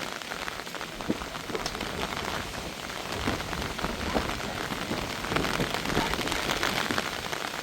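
Heavy rain falling on a surface: a steady hiss with many separate drop strikes.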